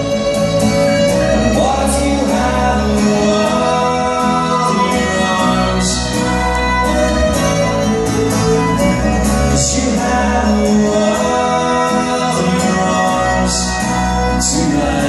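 Live acoustic band music: a strummed acoustic guitar, a bass guitar and a fiddle playing together.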